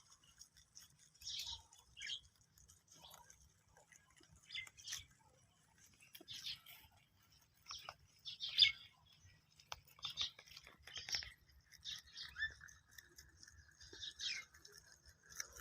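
Rabbits nibbling and rustling grass: short, irregular crackly rustles with pauses between them.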